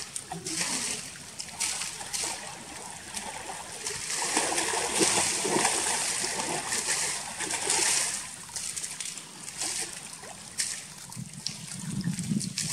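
Two Japanese black bears wrestling in a pool, splashing and churning the water. The splashing is heaviest from about four to eight seconds in.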